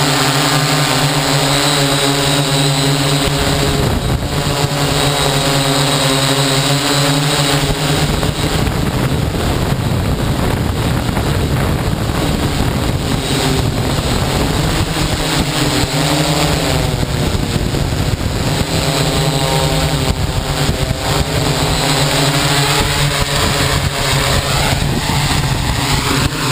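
Hexacopter's motors and propellers droning steadily as it descends to land, their pitch wavering now and then as the motors adjust to a fair wind. A low rumble runs underneath.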